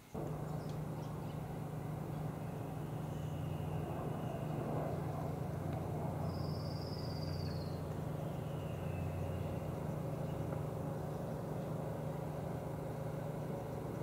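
Steady low motor hum over an even background noise, with a single high whistled note, falling at its end, about six to seven seconds in.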